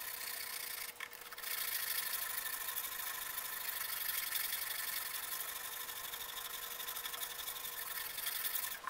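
Wooden ukulele part being sanded by hand on sandpaper, a steady back-and-forth scraping that pauses briefly about a second in and stops near the end. The wood is being sanded flat so that the neck will sit straight.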